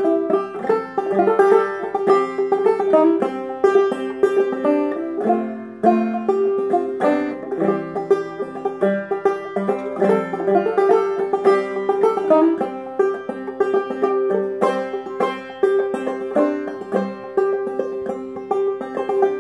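Five-string banjo played clawhammer style: a continuous run of plucked notes, with one high note coming back again and again like a drone.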